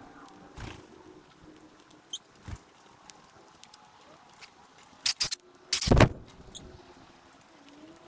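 Wild birds at a feeding spot: scattered short squeaky calls and clicks, with two loud harsh bursts a little past the middle, the second the loudest.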